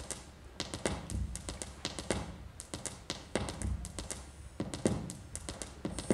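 Irregular sharp taps and clicks, several a second, with occasional low thumps among them.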